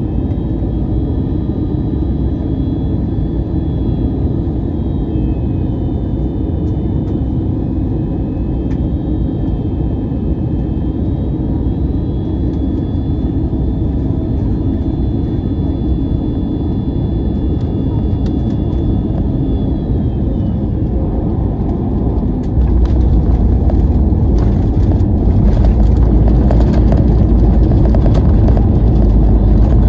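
Airbus A321-200 cabin noise on final approach: a steady roar of engines and airflow with thin whining tones. About 22 seconds in it turns suddenly louder, with a heavy rumble and rattling, as the wheels touch down and the aircraft rolls out on the runway.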